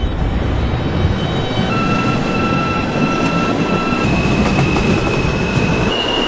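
New York City subway E train pulling out of a station, heard from inside the car. Wheels rumble on the rails throughout. About two seconds in, a steady electric motor whine starts and steps up and down in pitch a couple of times as the train gathers speed.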